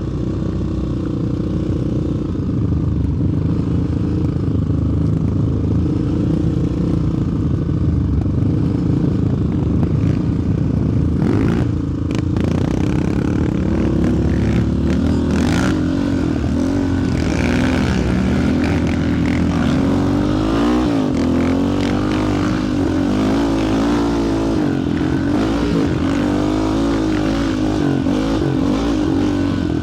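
Single-cylinder sport quad engines under way on a ride, the engine note rising and falling with the throttle, with a few brief clatters about a third and halfway through.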